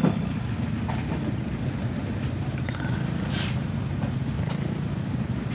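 Motorcycle engine running steadily at low speed in slow city traffic, a low, evenly pulsing drone, with faint passing-traffic noise over it.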